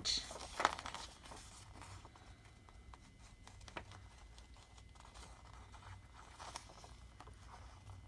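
Faint handling of paper at a craft table: soft rustling and scraping with a few light ticks and taps as a sheet is worked and positioned.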